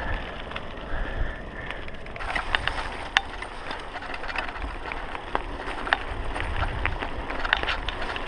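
Mountain bike ridden over a rough dirt trail, heard from a camera on the rider or bike: a steady low rumble of tyres on the ground, with frequent sharp clicks and knocks of the bike rattling over bumps from about two seconds in.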